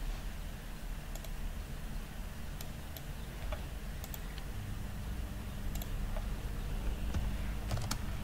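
Scattered clicks of a computer keyboard and mouse, single keystrokes and a quick cluster near the end, over a steady low hum.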